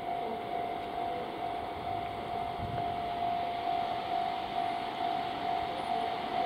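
Steady mechanical whirring hum carrying one constant mid-pitched tone, with no change or event through it.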